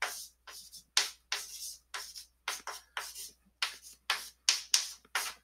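Chalk writing on a blackboard: an irregular run of short, sharp taps and scratchy strokes, about three to four a second, as letters and symbols of an equation are written out.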